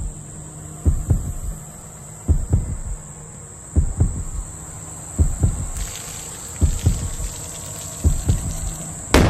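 Pairs of short, low thumps about every second and a half, like a heartbeat, over a steady high-pitched whine, ending in a loud hit near the end: an edited intro soundtrack rather than machine sound.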